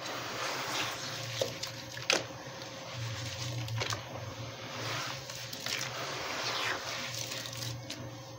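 Hands squeezing and crumbling gritty wet cement in water: continuous wet squishing and sloshing, with a few sharp crunches of grit.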